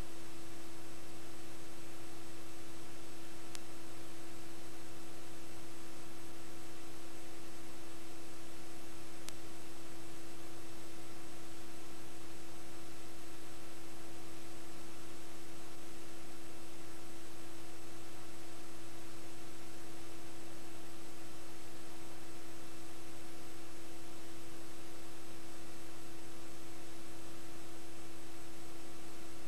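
Steady electrical hum with a constant buzzing tone over even hiss, and two faint clicks: an empty audio track with only line noise from the tape transfer.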